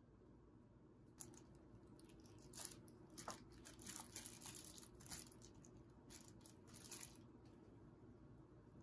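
Thin plastic produce bag crinkling as it is handled, a run of short faint crackles over a low steady room hum.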